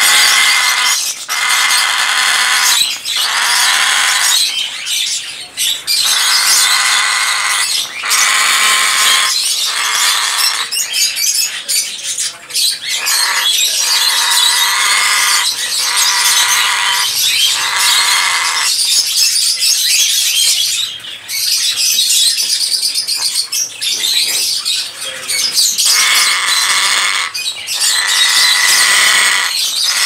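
African grey parrot squawking over and over: a long run of loud, harsh calls, each about a second or less, with short gaps between.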